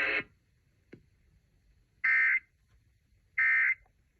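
NOAA Weather Radio Emergency Alert System end-of-message data bursts: two short, identical digital squawks about a second and a half apart. They mark the end of the alert.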